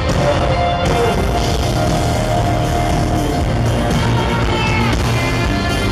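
Live band playing loud country-rock, with electric guitar and a drum kit, heard from the audience in a concert arena.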